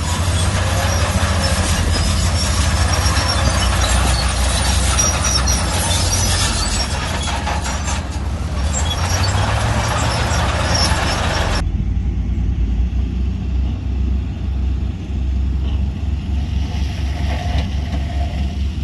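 Heavy diesel earthmoving machinery running with a deep, pulsing engine note. For about the first twelve seconds a dense rattling, scraping noise rides over it and then stops abruptly, leaving the engine running on its own.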